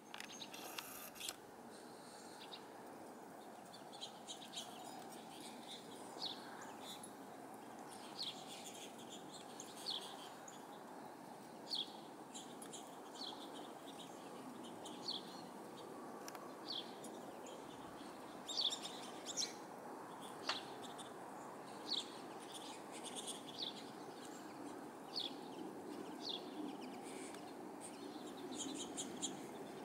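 Small songbirds giving short, sharp chirps, one every second or two, over a steady low background rumble.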